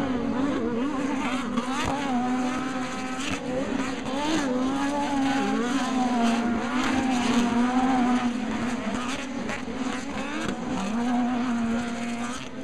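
Off-road race buggy engines running hard around the track, their pitch rising and falling steadily as they rev through the course.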